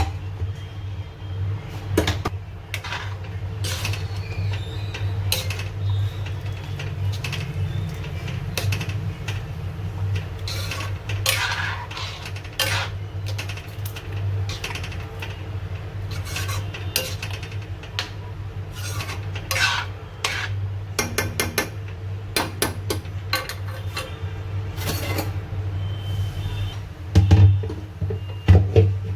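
Metal utensils clinking and scraping against a cooking pot, many short clatters, with a few louder knocks near the end, over a steady low hum.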